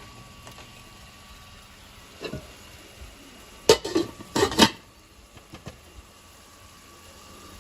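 Metal pots and pans clattering in a kitchen: a soft knock about two seconds in, then a quick run of several sharp clanks around four seconds in.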